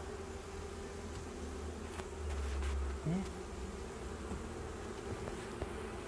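Honeybees buzzing over an open hive, a steady hum of many bees. A low rumble swells for about a second midway, followed by a short rising buzz.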